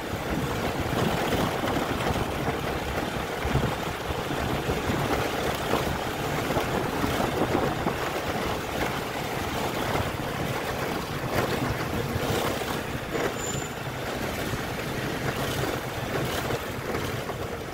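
Steady rush of wind on the microphone mixed with tyre rumble over hexagonal concrete paving blocks from a vehicle riding along the street.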